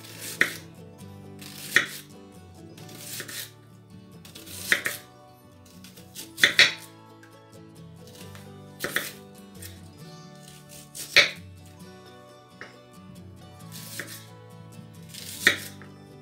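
Kitchen knife slicing a raw onion into rings on a wooden cutting board: each cut ends in a sharp knock on the board, about one every one to two seconds, with soft background music underneath.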